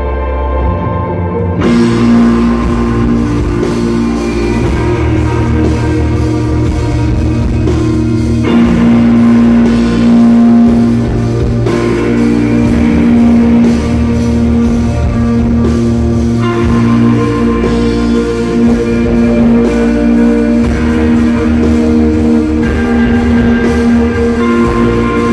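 Instrumental rock music with layered electric guitars over a drum kit, with no vocals; the full band comes in about two seconds in after a quieter, sparser opening.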